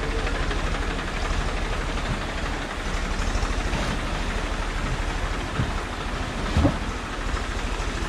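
Maruti Suzuki Omni van's three-cylinder petrol engine running steadily as the van creeps through a shallow river, with rushing water around it. A brief thump about six and a half seconds in.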